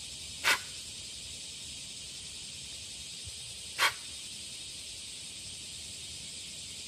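Two short, sharp hissing alarm snorts from a goat-antelope, about three seconds apart: a warning call. A steady high hiss runs underneath.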